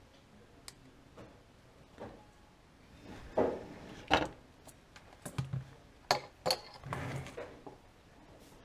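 Small tools and parts being handled on a workbench: a quiet start, then an irregular series of sharp clicks and knocks, a few with a dull thud, from about three seconds in.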